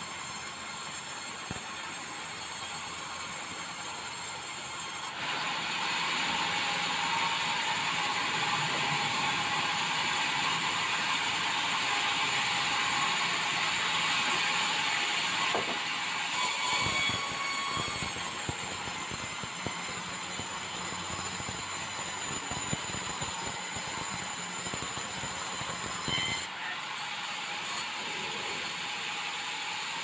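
Sawmill saw running and ripping lengthwise through bengkirai hardwood timber: a steady high whine and hiss. It grows fuller and louder about five seconds in as the blade works through the wood, and eases back near the end as the cut finishes.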